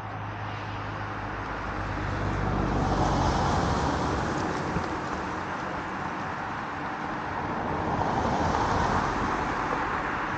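Road traffic passing: tyre and engine noise that swells about three seconds in and again near the end, with a low engine hum dying away in the first few seconds.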